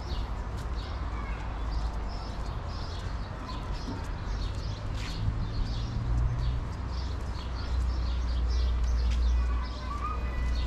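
Small birds chirping over and over, many short chirps overlapping, above a steady low rumble that grows louder in the second half.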